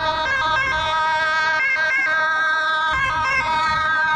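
Ambulance two-tone siren sounding continuously, stepping back and forth between a high and a low pitch.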